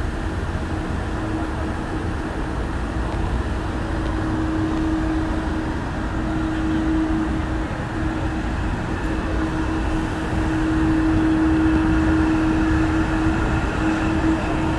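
Steady city street traffic noise with a constant hum running underneath.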